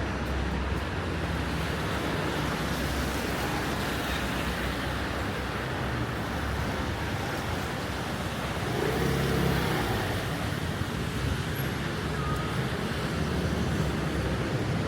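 City street traffic: a steady hiss of tyres and engines, with one vehicle passing closer and louder about nine seconds in.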